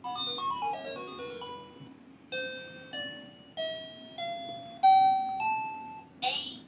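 Pink toy educational laptop switched on, playing its electronic start-up tune: a quick run of beeping notes, then about six single held tones, each a little higher than the one before. A voice starts near the end.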